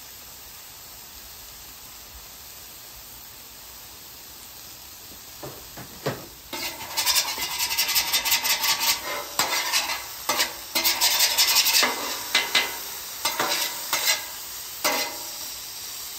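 Two metal spatulas scraping and chopping shaved filet steak on a steel flat top griddle: a quick run of clattering scrapes begins about six seconds in and thins out near the end. Before that only a faint steady sizzle of the meat cooking on low heat.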